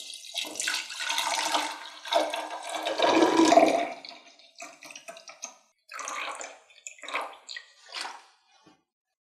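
A fizzy brown soft drink poured in a steady stream into a tall glass jar, loudest about three seconds in as the jar fills. The pour stops about four seconds in, and several short separate bursts of fizzing follow.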